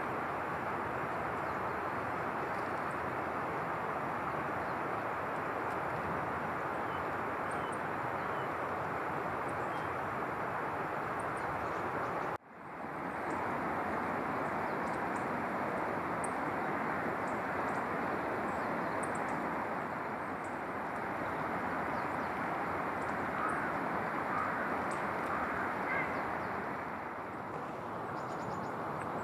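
Steady rushing outdoor noise with a few faint bird calls. The sound drops out for a moment about twelve seconds in.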